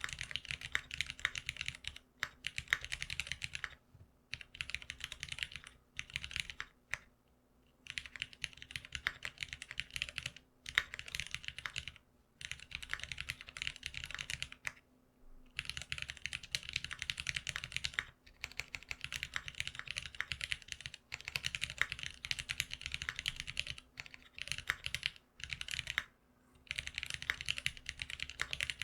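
Typing on a GeonWorks F1-8X custom mechanical keyboard fitted with lubed Cherry Black linear switches: fast runs of keystrokes broken by brief pauses.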